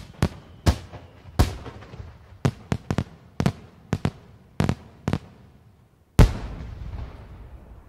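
Aerial firework shells bursting in a rapid series of sharp bangs, about a dozen in five seconds, then the loudest bang about six seconds in with a long fading rumble after it.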